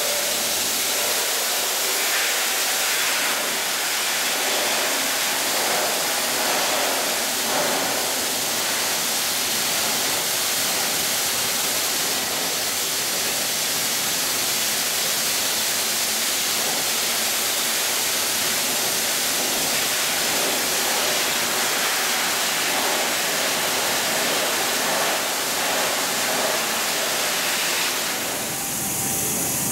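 Media-blasting nozzle spraying abrasive under compressed air against a truck cab's sheet metal, stripping the paint down to bare metal: a loud, steady hiss and rush. Near the end the sound changes to a lower, duller rush.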